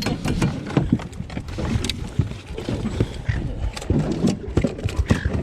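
Irregular knocks and slaps of a freshly caught small pinky snapper flapping as it is handled on the boat, over a steady low rumble.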